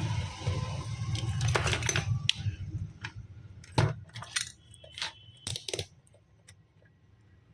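A series of sharp, light clicks and clinks of small hard objects, about ten spread over several seconds and thinning out toward the end, over a low hum that dies away in the first couple of seconds.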